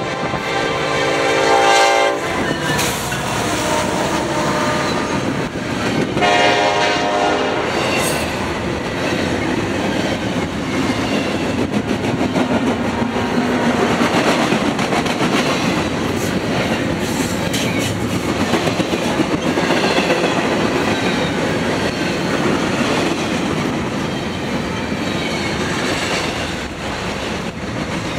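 Norfolk Southern freight locomotive's air horn sounds a blast of about two seconds, then a shorter one about six seconds in. After that comes the steady rumble and clickety-clack of a double-stack intermodal train's wheels rolling past close by.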